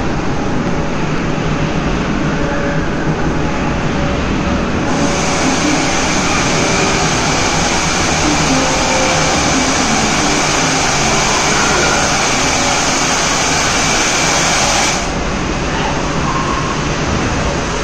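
Steady rushing, splashing water of a water-park cave feature. A brighter hiss joins it about five seconds in and drops away about ten seconds later.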